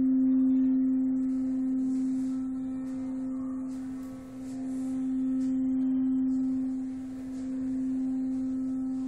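A single sustained, even tone that swells and fades slowly, dipping in loudness about every five seconds, with no strikes or breaks.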